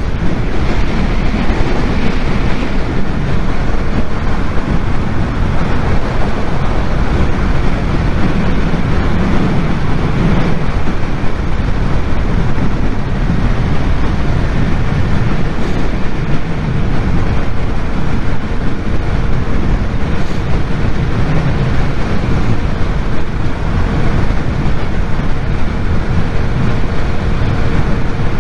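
Motorcycle cruising steadily at motorway speed, its engine drone buried under loud, constant wind rush on the helmet-mounted microphone.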